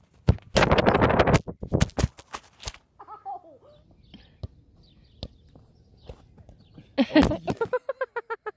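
Soccer ball kicks and knocks, with a dense loud clatter about a second in. About seven seconds in comes a loud knock as the filming phone is struck and falls, then a person's voice in quick repeated cries.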